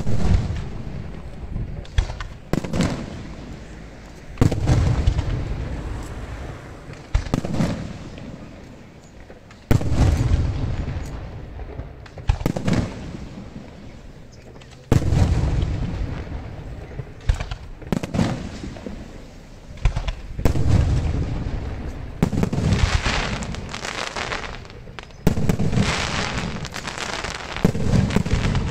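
Aerial firework shells bursting one after another, a sudden deep boom every two to three seconds, each trailing off in a rumbling echo. In the last few seconds the bursts come with a dense crackling fizz of glittering stars.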